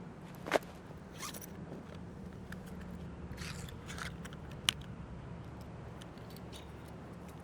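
Small handling sounds: a few sharp clicks and short scraping rustles over a low steady hum.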